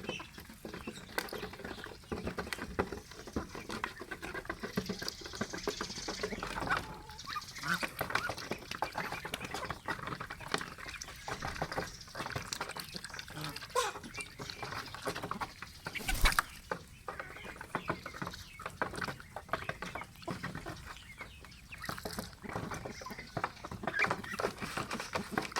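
Pet geese and ducks calling in many short, overlapping honks and quacks, with a sharp knock about sixteen seconds in.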